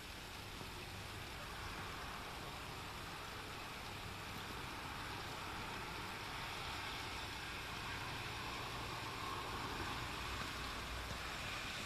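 Steady rain falling, an even hiss, with a low steady rumble underneath.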